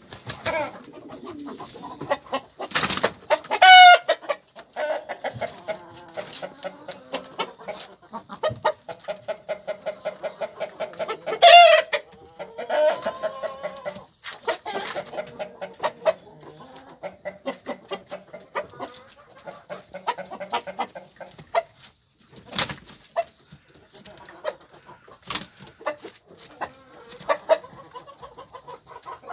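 Herati chickens clucking in a long run of short repeated clucks, with two louder calls, one about three seconds in and one about eleven seconds in.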